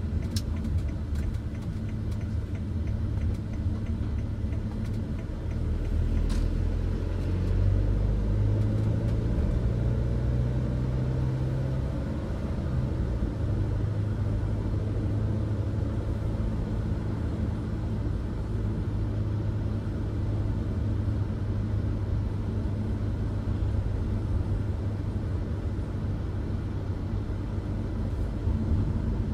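Mercedes-Benz Sprinter van driving, its engine and tyre noise heard inside the cab as a steady low hum. Between about eight and twelve seconds in, the engine note rises as the van accelerates, then drops back and settles.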